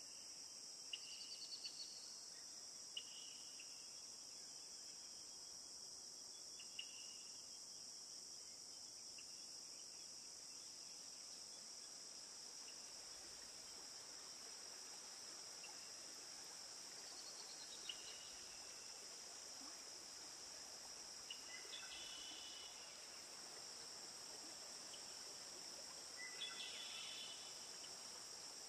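Faint, steady high-pitched insect drone with a few short bird chirps scattered through it.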